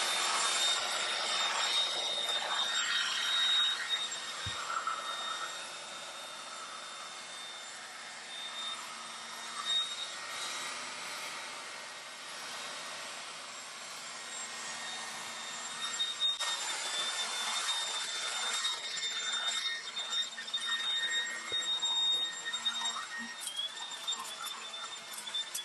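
Prolux wet/dry garage vac running on suction, a steady airy rush with a thin high whine, while its brush tool is scrubbed over car floor-mat carpet. In the last third the scrubbing turns busier, with rapid scratchy ticks.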